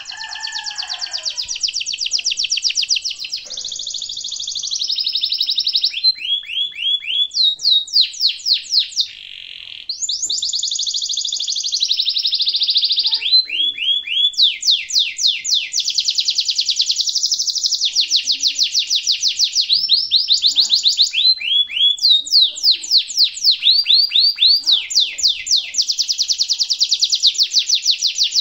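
Domestic canary singing a long unbroken song of rapid trills and rolls, switching to a new phrase every second or two; some phrases are strings of quick downward-sweeping notes, about five a second.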